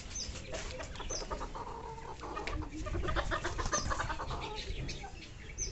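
Bantam chickens clucking in short, repeated calls, busiest about three seconds in, with light scratching and pecking on concrete.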